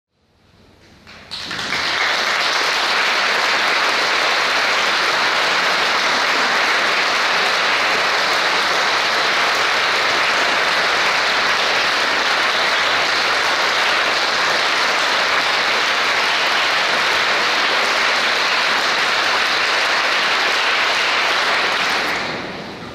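Audience applauding in a concert hall: a dense, even clapping that swells in over the first two seconds, holds steady, then dies down about a second before the end.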